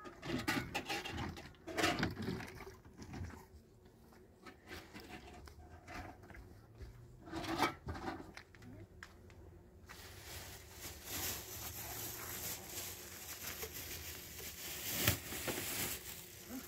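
Scattered footsteps and knocks of handled household things, among them a plastic jug and basin, with a steady hiss from about ten seconds in.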